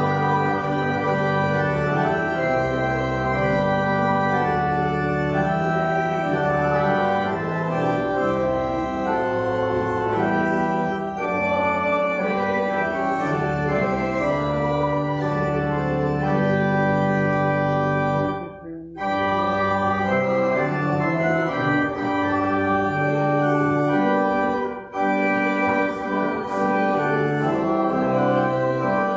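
Church organ playing in sustained chords that change every second or so, with a brief break about two-thirds of the way through.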